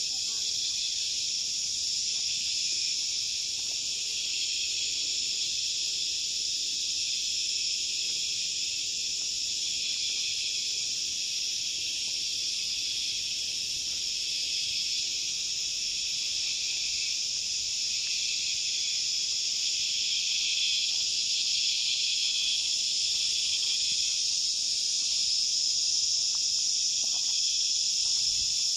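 Steady, dense chorus of insects, a continuous high-pitched shrilling that grows slightly louder in the second half.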